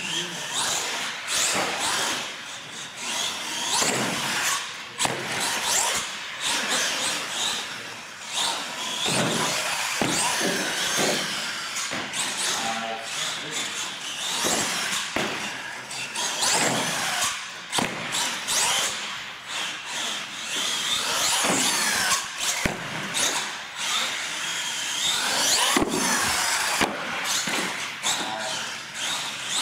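An R/C monster truck's electric motor whines, rising and falling in pitch as the truck speeds up and slows down. Its tyres scrub on the concrete floor, with a few sharp knocks as it hits the ramps.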